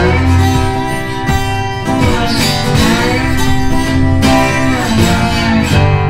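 Background music led by acoustic guitar.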